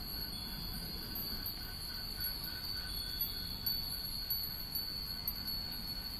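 Many Japanese wind bells (furin) tinkling at random as the wind stirs them, with small bright strikes scattered over a steady high-pitched drone.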